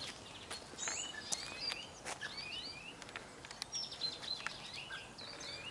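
Birds chirping and calling: many short, quick whistled notes that slide up or down, overlapping one another, with a few sharp ticks among them.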